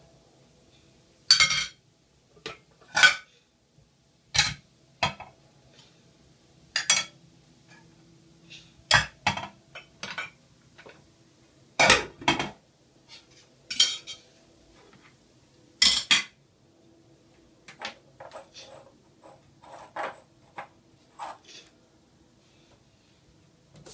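Dishes and cutlery clinking and knocking together as a two-year-old washes up by hand: irregular sharp clinks, roughly one every second or so, some loud and some faint.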